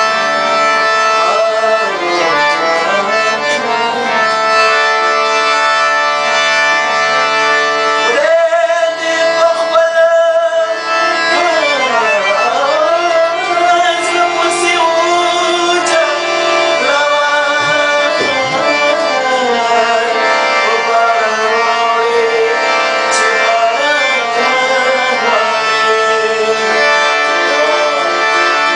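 A man singing a Pashto song to harmonium and tabla: long, wavering held notes of the voice over steady harmonium chords, with tabla strokes underneath.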